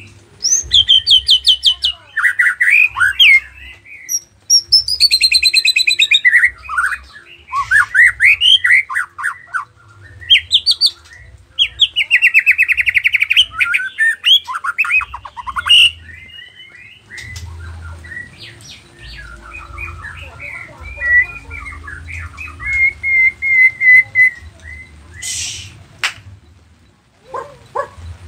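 Nias white-rumped shama singing a loud, varied song of rapid trills, whistled glides and chattering phrases, filled with mimicked notes. After about 16 seconds the song drops to quieter chirping, with a short hiss about 25 seconds in.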